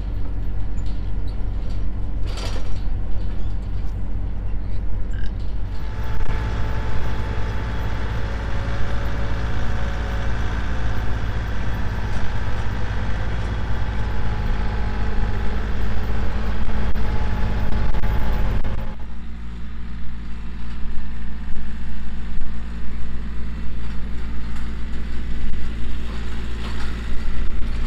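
Compact farm tractor's engine running steadily while towing a loaded livestock trailer. The sound is fuller from about six seconds in and drops back somewhat at about nineteen seconds.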